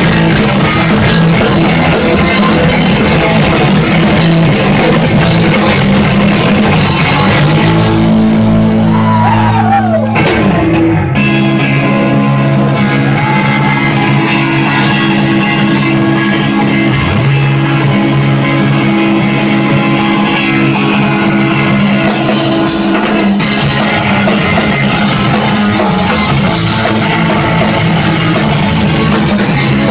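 Rock band playing live, with distorted electric guitars, bass and drums. For a stretch in the middle the cymbals drop out, leaving guitars and bass holding chords, with a note sliding down near the start of that stretch; the full band comes back in about two-thirds of the way through.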